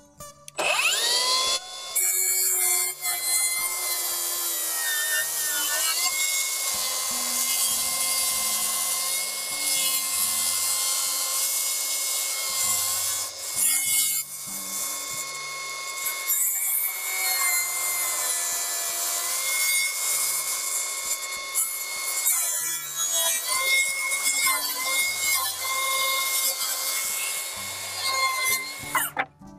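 Milwaukee track saw spinning up with a rising whine, then running a long rip cut through a board along its guide rail: a steady high motor whine over the noise of the blade in the wood. The sound dips briefly about halfway through, and the motor winds down near the end.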